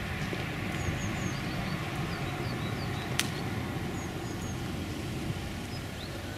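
Outdoor ambience: a steady low rumble, with small birds chirping now and then in short high sliding notes and one sharp click about three seconds in.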